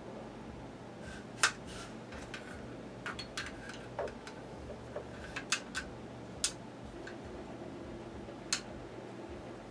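Irregular light clicks and taps of small parts and hand tools being handled during a workshop fitting job, over a steady low hum. The loudest click comes about one and a half seconds in, and the rest are scattered through.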